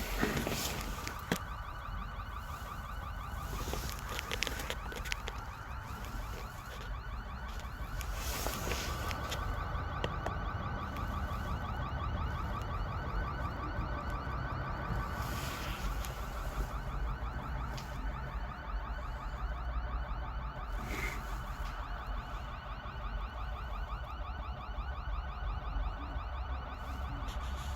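A car alarm sounding continuously, a fast, even pulsing tone that keeps on unchanged, over a low wind-like rumble with a few brief rustles of handling noise.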